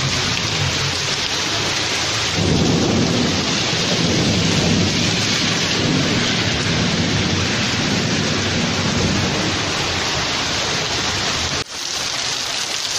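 Steady heavy rain falling, with a low irregular rumble underneath from about two seconds in. Near the end the sound drops out for an instant, and the rain goes on.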